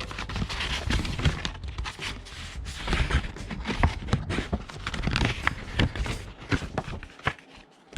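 Packaging being handled by hand: rustling with frequent small taps and knocks, thinning out near the end.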